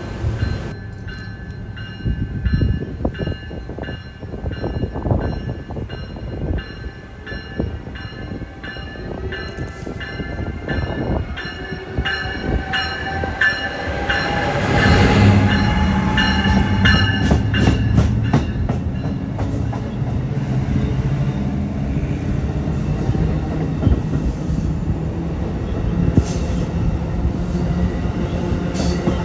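A train passing close by. Steady high ringing tones run with evenly repeated knocks through the first two-thirds, and a heavy low engine sound builds about halfway through and carries on.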